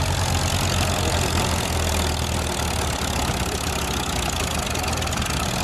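Farmall H tractor's four-cylinder engine running steadily while pulling a two-bottom plow through the field.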